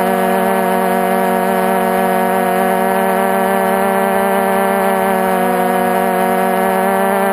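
Electric motors and propellers of a multirotor drone in steady flight, heard from the onboard camera: a loud, unchanging whine at one constant pitch.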